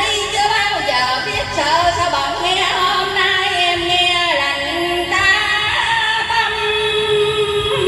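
A woman singing a Vietnamese song over instrumental backing, her voice gliding and wavering in pitch on long held notes.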